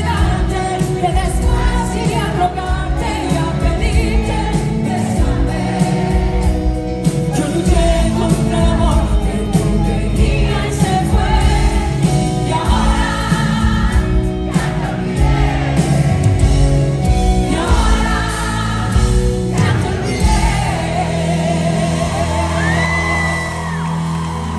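A woman singing a pop song with a live band of guitars, bass and drums, heard through a concert sound system.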